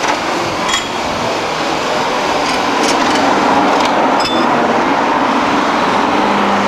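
A steady hiss that grows a little louder, typical of a steam locomotive standing with steam up, with a few light clicks over it. A low steady hum comes in near the end.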